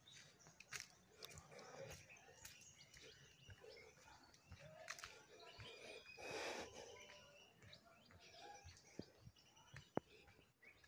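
Near silence: faint outdoor ambience with scattered faint bird chirps and a brief rush of noise about six seconds in.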